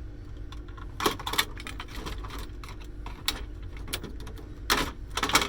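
Scattered clicks and clattering knocks of metal and plastic parts being handled while a cash register is taken apart, with a small cluster near the end.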